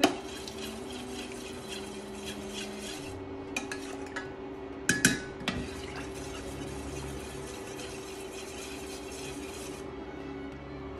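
A metal spoon stirring milk in a stainless steel saucepan, scraping and ticking against the pan with a louder clink about five seconds in, over a steady hum. The stirring stops about a second before the end.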